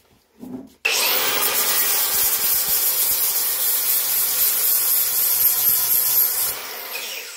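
Small cordless angle grinder with an abrasive disc grinding a part, a steady grinding hiss over the motor's whine. It starts suddenly about a second in, and near the end the grinding stops and the disc spins down.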